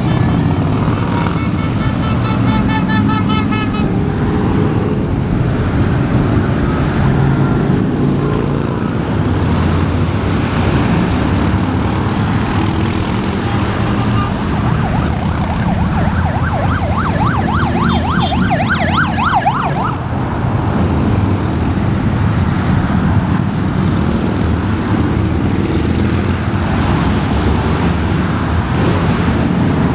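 Steady highway traffic with the dense rumble of a long column of motorcycles passing. A siren warbles briefly about a second in, and again for about four seconds past the middle.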